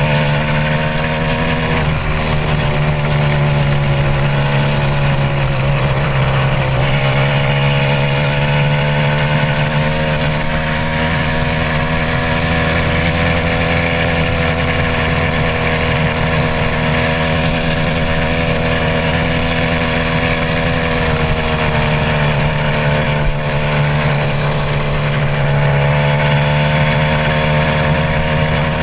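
66cc two-stroke bicycle engine on a motorized mountain bike running steadily under way, its pitch rising and easing a little with the throttle, with a brief dip about 23 seconds in.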